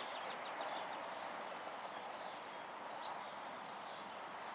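Faint outdoor background: a steady hiss with faint, high bird chirps now and then.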